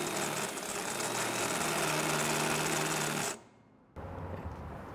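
Power drill spinning a stepped bit as it bores a pilot hole out to size in the metal door of a pellet grill: a steady whir with a cutting hiss that cuts off about three and a half seconds in, followed by a low hum.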